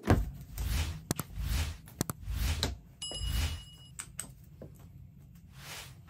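Steel sand-casting flask being closed: the upper half, packed with Petrobond sand, is slid and settled onto the lower half, with metal sliding and scraping and several sharp metal clicks and knocks as the halves seat together.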